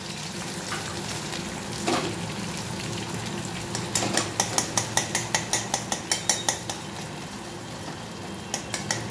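An egg frying in shallow oil in a wok, with a steady sizzle. From about four seconds in, a metal spatula scrapes and taps against the pan in quick strokes, about five a second, then starts again near the end.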